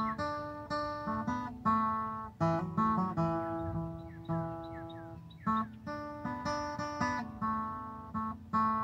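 Blueridge BR-160 dreadnought acoustic guitar played solo without singing: picked chords and single notes ringing out and fading, with small squeaks between some notes.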